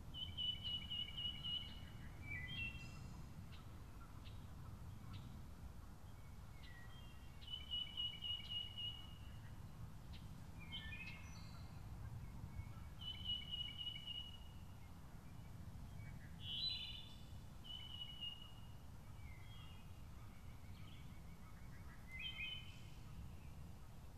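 Wood thrush singing, its fluty song phrases repeated about every five seconds. The song sits over a steady low rumble of background noise.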